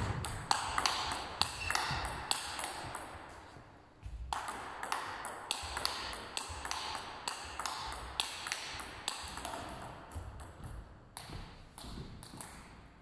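Table tennis rally: a plastic ball clicking sharply off a penhold short-pips (pips-out) bat in quick backhand push-blocks and off the table, a couple of clicks a second. The run breaks off briefly about four seconds in, then resumes and thins out near the end.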